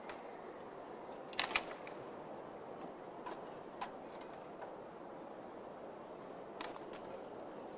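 A few short, sharp clicks or snaps, some in quick pairs, over a steady low hiss.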